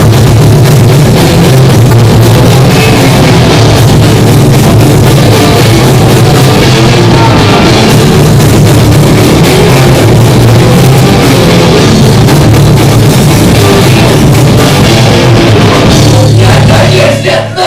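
Punk band playing live at full volume: distorted guitars, bass and a fast, pounding drum kit, with some shouted vocals, ending abruptly near the end.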